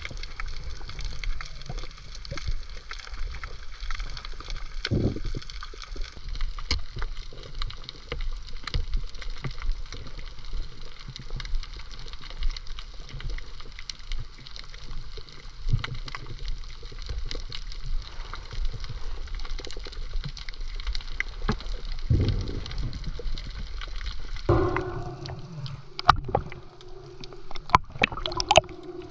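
Water gurgling and sloshing, with many scattered sharp clicks and a couple of heavier knocks. A steady low hum joins in near the end.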